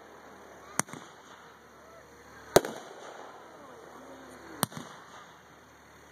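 Aerial firework shells going off: three sharp bangs about two seconds apart, the middle one the loudest, with another starting right at the end.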